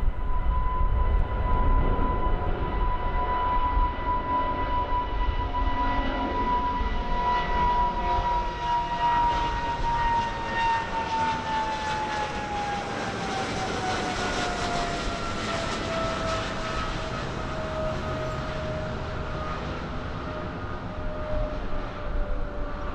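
Boeing 777 jet engines at takeoff power as the airliner lifts off and climbs overhead: a steady rumble under a strong high whine. About ten seconds in, the whine slides steadily down in pitch as the jet passes over and moves away.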